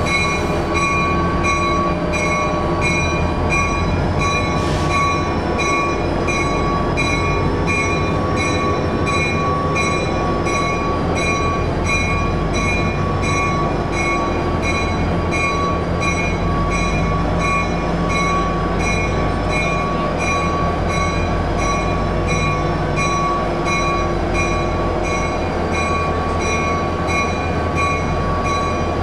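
Passenger cars of a train hauled by a B&O GP30 diesel rolling slowly past: a steady low rumble of wheels and running gear with a steady wheel squeal. Over it, a ringing tone repeats in an even beat.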